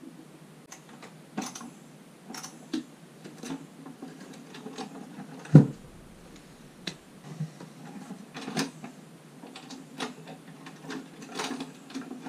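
Scattered clicks and taps of hand work with a screwdriver on a wooden chest, with one heavy wooden thump about halfway through as the chest's lid is shut.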